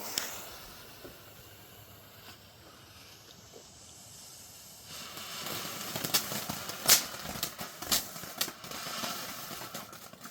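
Small 'Golden Flowers' firework fountain: a faint hiss for the first few seconds, then about five seconds in it erupts into a louder hissing spray, with sharp crackles and pops through to the end.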